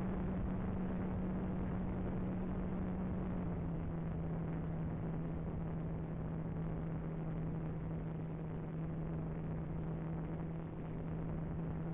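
Electric motor and spinning propeller of a Radian Pro RC motor-glider running steadily under power, heard from the onboard camera with air rushing past. Its pitch steps slightly lower about three and a half seconds in.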